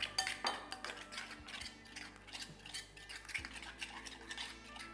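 Spoon stirring a thin flour-and-chilli batter in a glass bowl, with irregular clinks and scrapes against the glass as the lumps are worked out.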